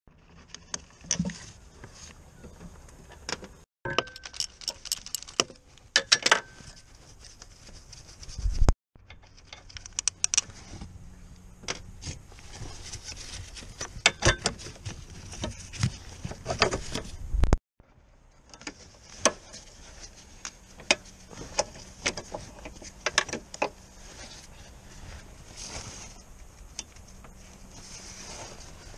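Gear selector cable ends and linkage on a gearbox being worked by hand: scattered sharp clicks and metallic clinks.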